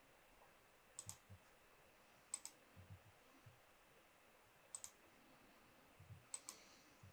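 Faint computer mouse clicks, mostly in quick pairs like double-clicks, about four times.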